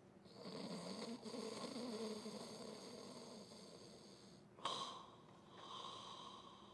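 Shih Tzu dog snoring quietly while asleep: a long wavering snore, a short sharp sound about four and a half seconds in that is the loudest moment, then another softer snore.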